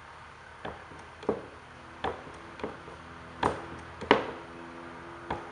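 A series of about seven sharp knocks and taps at uneven intervals, the loudest two around the middle, from work on an aluminium wing spar held in a spar rivet squeezer.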